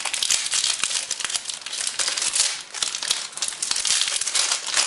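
Plastic wrapping on a box of trading cards crinkling and crackling as it is torn open and pulled off by hand, a dense irregular rustle.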